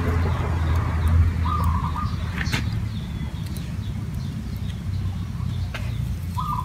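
Outdoor yard ambience over a low steady rumble: a bird gives a short call twice, about five seconds apart. A couple of light clicks come in between.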